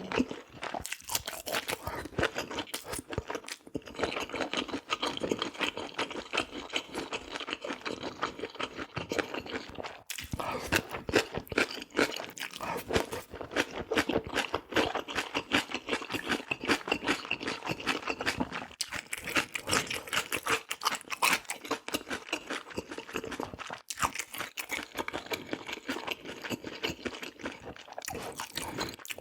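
Close-up chewing: a person eating with dense, rapid crunching and wet mouth clicks, pausing briefly a couple of times.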